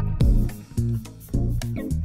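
Background music: plucked guitar and bass notes over a steady beat.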